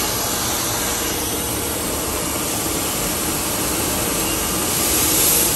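Steady rushing noise of knife-workshop machinery: a belt grinder and its dust extraction running, a little louder about five seconds in.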